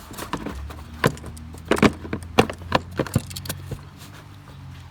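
Plastic clatter and knocks of a car's air cleaner box top being worked into place over its locating legs and intake neck, in a run of sharp clicks. A low steady hum starts about half a second in.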